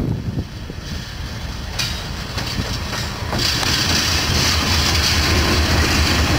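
EL class diesel-electric locomotive passing slowly at close range, its diesel engine running with a steady low rumble. It grows louder about three seconds in as the locomotive comes alongside.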